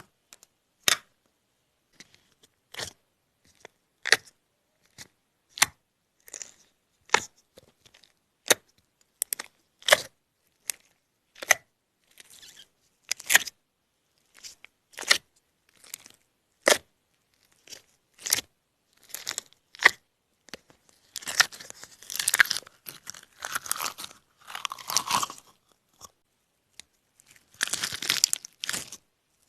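Close-miked ASMR trigger sounds: a series of sharp, crisp clicks about once a second. About two-thirds in they give way to denser crinkling and crackling.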